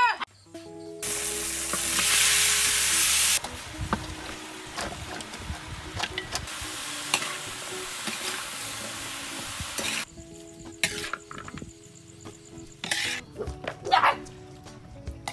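Sliced pumpkin and chicken sizzling as they are stir-fried in a wok, loudest in the first couple of seconds, with a metal spatula clicking and scraping against the pan. The sizzling stops about ten seconds in, and a few short puppy yelps follow near the end.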